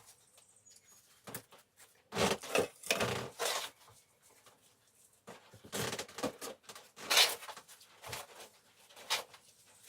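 Irregular rustling and light knocks from hands handling seed pots, soil and seed packets, in a few short clusters with a sharp click near the end.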